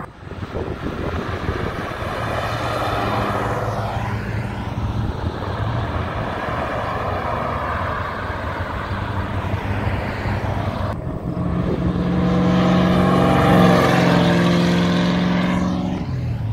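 Cars driving past one at a time, each engine note swelling and fading as the car goes by. The loudest pass, a car with a deep steady engine note, peaks about two-thirds of the way through and fades near the end.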